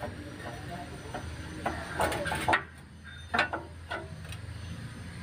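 Sharp metal clanks and knocks as a Daihatsu Gran Max's left engine mount bracket is worked loose by hand: a cluster about two seconds in and a couple more later, over a steady low hum.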